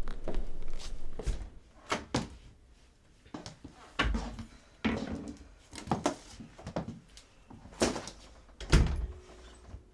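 Irregular knocks and thuds, roughly one a second, the loudest about four seconds in and near the end.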